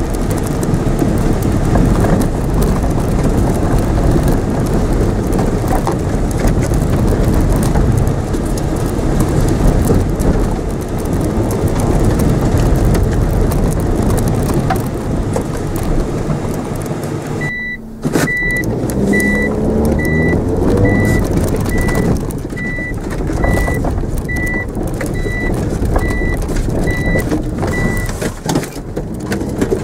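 Mitsubishi Mirage engine and tyres rumbling over rough grass, heard from inside the cabin during a hard run. About halfway through, a high electronic beep starts, repeating about one and a half times a second for about ten seconds, while the engine revs rise.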